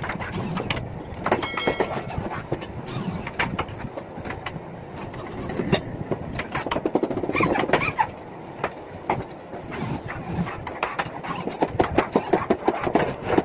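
Carpentry on particle board: repeated knocks, taps and clatter as the panels are handled and fitted, with a brief whine of a corded electric hand drill about one and a half seconds in and a quicker run of knocks near the end while the top panel is drilled.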